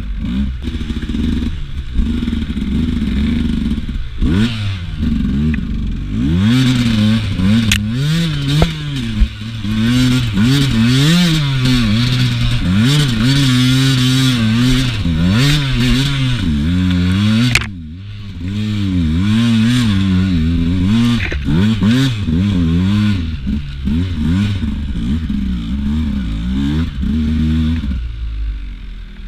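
Beta RR 200 two-stroke enduro motorcycle engine revving up and down again and again as the rider works the throttle through a twisty trail, dropping off briefly about two-thirds of the way through. Occasional knocks and clatter from the bike.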